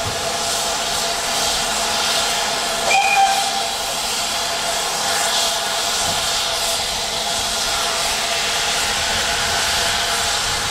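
Steam hissing steadily from the standing GWR Saint class 4-6-0 steam locomotive 'Lady of Legend', with one short whistle toot about three seconds in.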